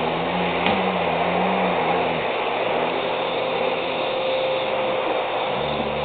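Vacuum cleaner motor running steadily with a steady whine, its brush nozzle being drawn over a White Shepherd's coat. Over it come the dog's low, drawn-out happy vocal sounds, which bend in pitch: one in the first two seconds, another midway and a third starting near the end.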